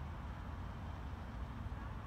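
Distant rumble of a CSX freight train approaching from far off behind its lead GE AC44CW diesel locomotives: a steady low rumble with no distinct events.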